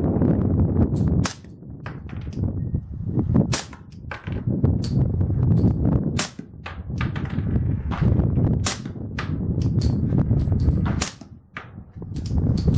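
Suppressed Glock 22 .40 S&W pistol fired shot after shot at an uneven pace, roughly one a second, each shot a sharp crack. The pistol wears an Osprey 40 suppressor and fires minor-power loads. A steady low rumble runs between the shots.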